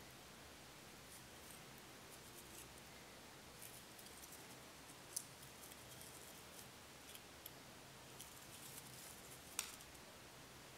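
Faint metal clicks from a rusty antique areca nut cutter being handled, its hinged handles and blade worked open and shut by hand. Two sharper clicks stand out, about five seconds in and near the end.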